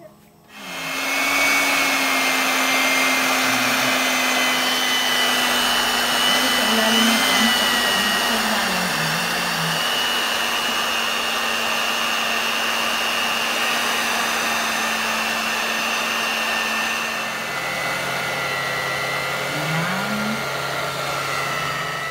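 Handheld electric mixer switching on about a second in and running steadily with a motor whine, its beaters mixing flour into cake batter; its hum drops lower near the end.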